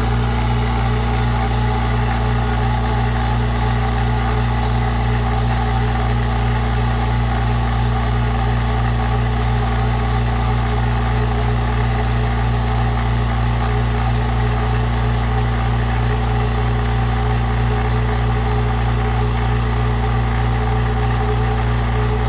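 California Air Tools 10-gallon, 2-horsepower twin-piston induction-motor air compressor running with a steady hum as it pumps up the tank pressure.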